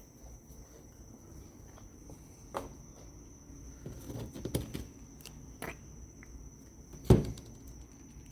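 Small parts of a clutch slave cylinder being handled and set down on a bench: a few light clicks and knocks, the loudest about seven seconds in, over a thin steady high tone.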